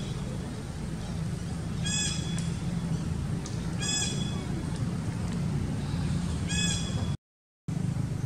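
Short, high-pitched animal call that rises and falls in pitch, repeated about every two seconds, over a steady low rumble. The sound drops out for about half a second near the end.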